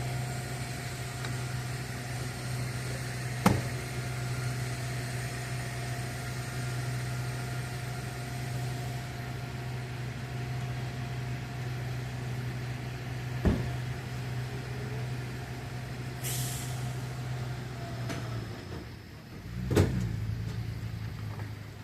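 Fire engine's diesel engine idling steadily. Two sharp knocks come about ten seconds apart, a short hiss follows a few seconds later, and the engine sound changes and swells briefly near the end.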